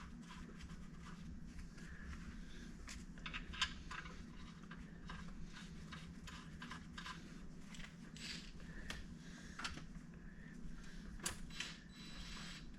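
Scattered light clicks and taps of tools and bolts being handled while the tractor's TA is fitted, irregular and of varying strength, over a steady low hum.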